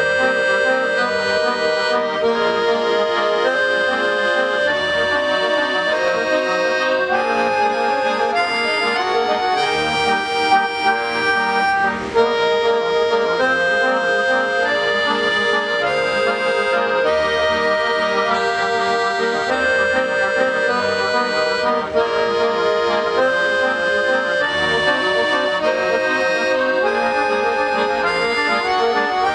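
Three accordions playing a piece together, with sustained notes that change pitch about every half second to a second at an even loudness.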